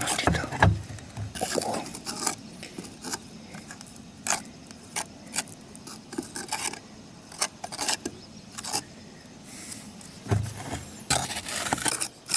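Roof-tile repair work: scattered scraping and rubbing with sharp clicks, busiest at the start and again near the end.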